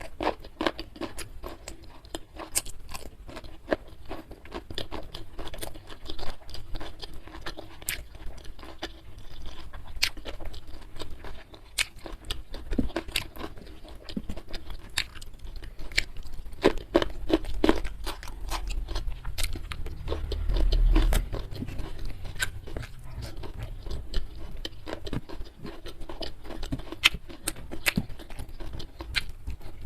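Close-miked eating: steady chewing with wet mouth clicks and crunchy bites. There is a brief low rumble about twenty seconds in.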